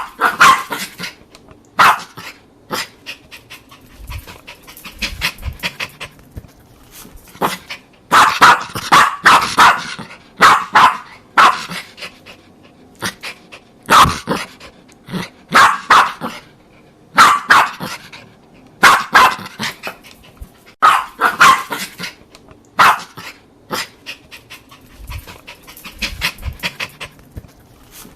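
Jack Russell Terrier barking in sharp, repeated bursts, several barks at a time with short pauses between.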